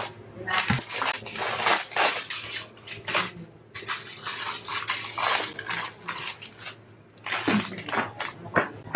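Clear plastic bag crinkling and rustling in irregular bursts as it is handled and opened by hand.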